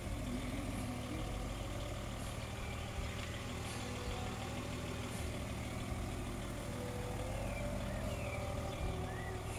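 Audi A6 2.5 TDI's V6 diesel engine idling steadily, a low even hum.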